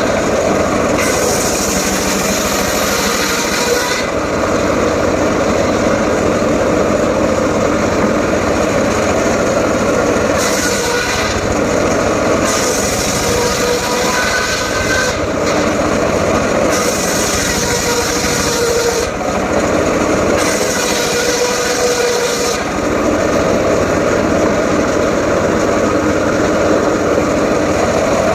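Homemade engine-driven circular saw running and cutting mahogany wood, a loud steady drone with a whine that brightens and dulls every few seconds.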